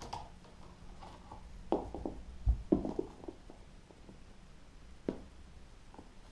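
Scottish fold cat playing with a string toy: a cluster of soft knocks and thumps, the loudest a deep thump about two and a half seconds in, and one more knock near five seconds.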